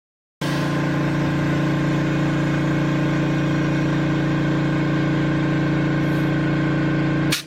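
Electric air compressor running with a steady, loud motor hum. It starts abruptly about half a second in and cuts off sharply with a click just before the end.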